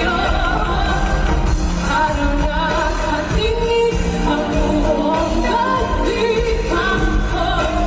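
A live pop performance: a woman sings into a handheld microphone over a full band with a steady pulsing beat.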